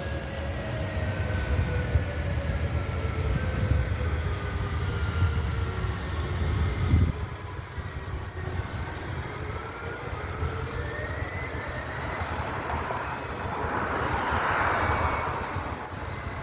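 Distant outdoor warning sirens wailing, several slow gliding tones overlapping and fading in and out, over a low traffic rumble that drops away about seven seconds in.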